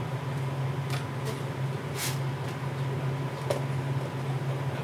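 Steady low machine hum, with a faint steady high tone above it and a few faint brief rustles.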